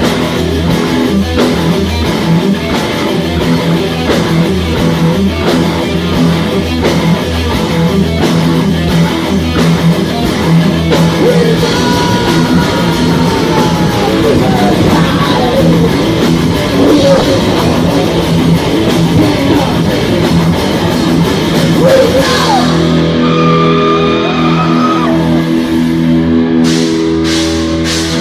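Live heavy metal band playing loud, with electric guitars, bass and a fast drum kit. About 22 seconds in the drums drop out, leaving held guitar chords ringing, and drum hits come back near the end.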